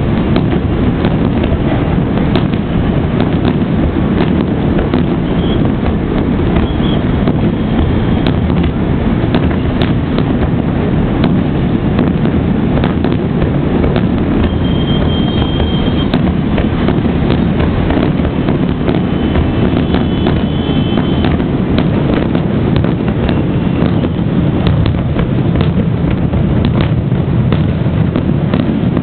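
Fireworks display: many sharp bangs and crackles over a constant loud rumble, with a few short high whistles.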